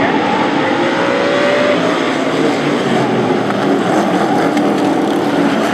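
A pack of Super Pro Truck race trucks' engines running together at racing speed, a loud steady wall of engine noise with single engine notes briefly rising above it.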